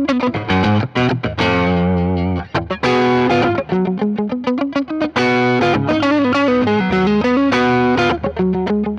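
Telecaster-style electric guitar on its neck pickup, played through a Marshall amp: strummed chords and short riffs, with a held chord about two seconds in that wavers in pitch.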